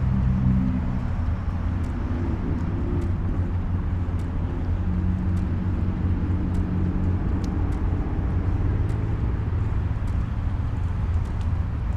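Steady low engine rumble from motor vehicles, its pitch drifting slightly, with faint light ticks over it.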